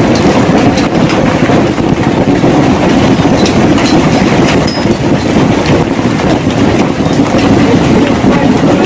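Heavy hail pounding on a hard surface: a loud, continuous clatter of many sharp hits.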